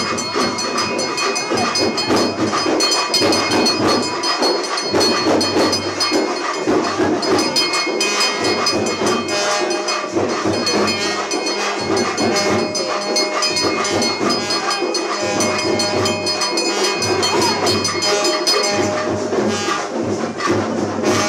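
Temple bells clanging rapidly and continuously, a dense metallic jangle with a steady high ring, over a low beat that repeats about every second and a half.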